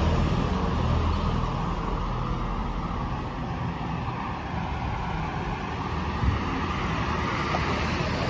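Street traffic noise: a low vehicle engine rumble eases over the first second or so, leaving a steady hum of traffic.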